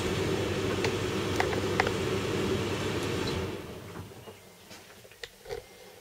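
Zanussi Lindo 300 condenser tumble dryer running with a steady hum and rush of air, with a few light clicks. It is being paused and winds down to a stop about three and a half seconds in.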